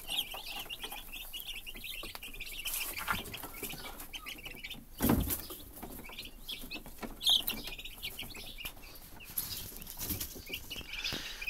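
A brood of young broiler turkey poults in a box, peeping continually in many short high chirps. A single thump comes about five seconds in.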